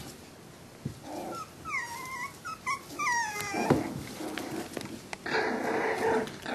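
Five-week-old Jack Russell Terrier puppies at play, whining in a run of short, high, falling cries about two to three seconds in. Near the end comes a rough play-growl as a puppy mouths a sneaker.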